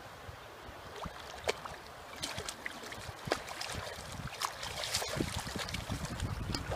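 A hooked steelhead thrashing at the river surface, with irregular slaps and splashes that get busier and louder through the second half.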